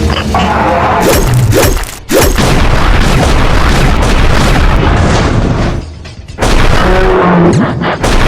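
Loud, dense added sound effects of booms and crashing, dropping away briefly about six seconds in, with music underneath.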